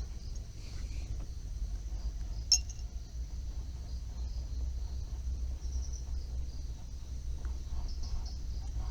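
Steady high-pitched insect chirring, such as crickets, over a low hum, with a sharp click at the start and another about two and a half seconds in.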